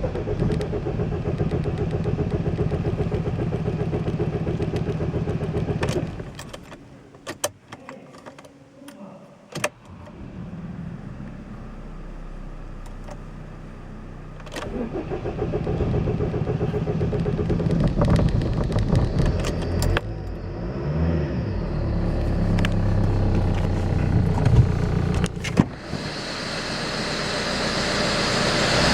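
Opel Vectra B 2.2 DTI four-cylinder turbo-diesel being cranked on the starter in repeated start attempts on a car that won't start. A long crank stops about six seconds in, followed by several sharp key clicks, and cranking resumes about halfway through.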